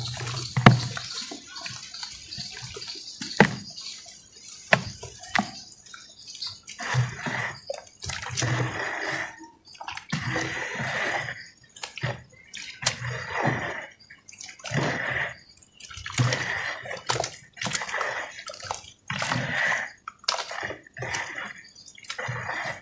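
Hands squelching and sloshing through thick red-dirt mud in a basin of water, in repeated wet surges about once a second. At the start, crumbled dry red dirt drops into the water with small plops and drips.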